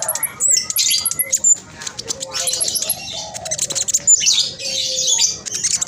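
Black sunbird singing a fast, tightly packed, high-pitched chattering song: rapid trills and sharp, thin notes in quick succession, with barely a pause.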